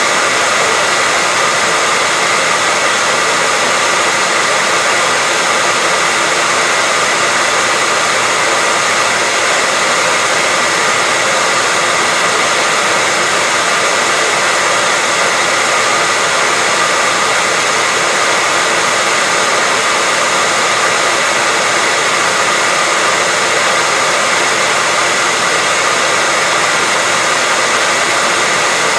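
Hairdryer running steadily: an even rush of air with a faint steady motor whine, unchanging throughout.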